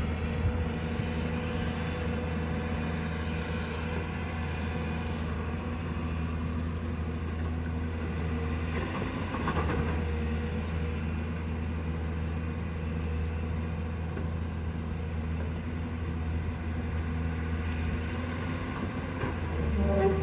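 Excavator's diesel engine running steadily, with a brief louder noise about halfway through.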